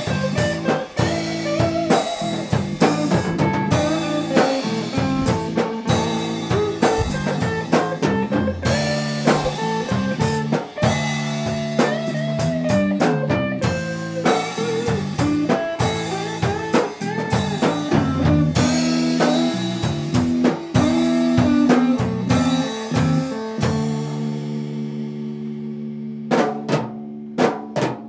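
Rock band playing an instrumental passage: drum kit with regular hits and rimshots under guitar and bass. Near the end the drums drop out for a moment, leaving held notes, then a few sharp drum hits come back.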